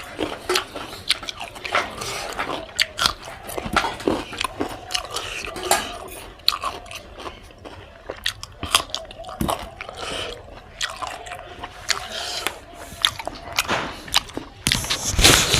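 Close-up mouth sounds of a person biting and chewing spicy pork: wet, irregular chewing with many short, sharp clicks.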